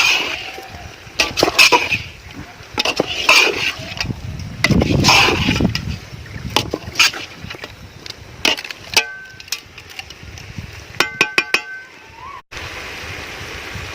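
A spoon stirring and scraping thick quail masala in a pan, in irregular strokes. Later there are a few short, clear clinking tones.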